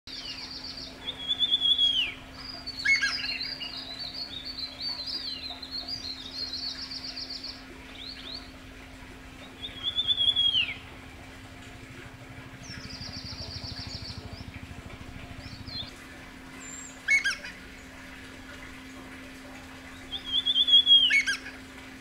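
Wild birds calling. A loud descending whistled phrase comes three times, about ten seconds apart, with quieter rapid trills and short chirps between.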